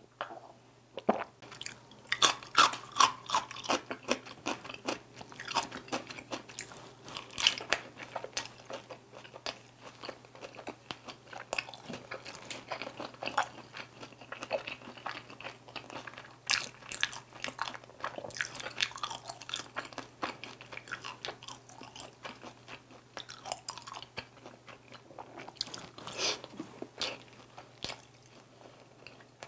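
Close-miked chewing of crunchy glazed Korean fried chicken (dakgangjeong): rapid crisp crunches, loudest and thickest a couple of seconds in, then continuing in irregular crackles through the rest of the chewing, over a faint steady low hum.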